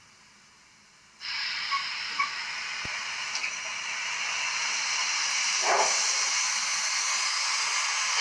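BR 44 steam locomotive sound starting off: after about a second of quiet, a steady steam hiss starts suddenly and slowly grows louder, with a few light clicks, and one heavier exhaust puff comes near the end.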